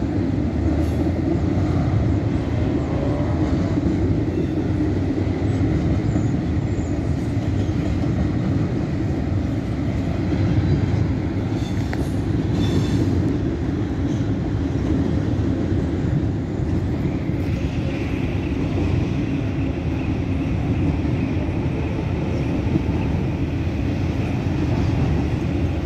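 Northbound CSX double-stack intermodal freight train rolling past at close range: a steady, loud rumble and clatter of well cars loaded with containers. A thin steady high squeal joins about two-thirds of the way in.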